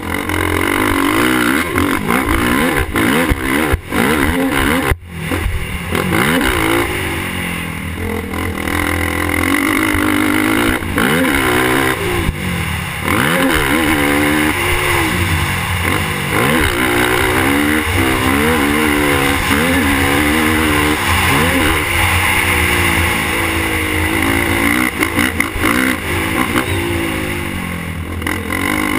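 Suzuki LTR450 quad's single-cylinder four-stroke engine revving up and down over and over as it is ridden hard over dirt, the throttle briefly cut about five seconds in. Wind rushes steadily over the helmet microphone.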